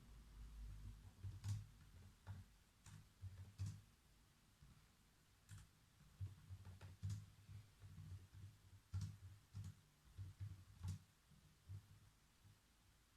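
Computer keyboard being typed on: faint, irregular keystrokes in short runs, each a soft click with a low thump, broken by brief pauses.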